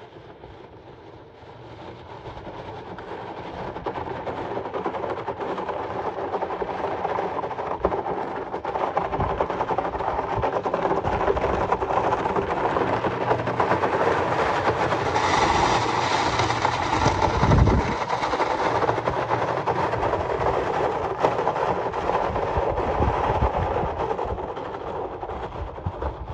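A long, steady rumbling noise that builds up over the first few seconds and eases off near the end.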